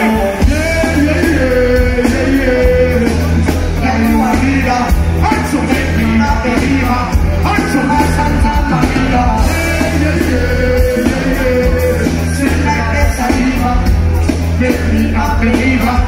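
Live dancehall music played loud through a concert PA, with heavy bass and a singing voice over the beat.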